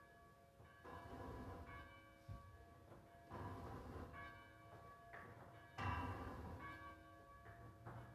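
Church bell tolling slowly for the dead, struck about every two and a half seconds: three strokes, each ringing on into the next.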